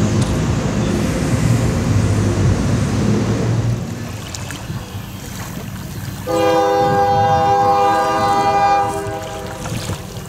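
Norfolk Southern diesel freight locomotive running with a steady low rumble as it passes. After a cut, a locomotive air horn sounds one long blast of several notes together for about two and a half seconds, then fades.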